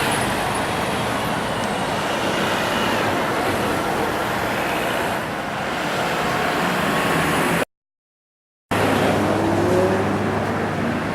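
Maserati GranTurismo Sport V8 engine and exhaust running loud amid road noise, cut off for about a second near the end, then the engine note rising as it revs.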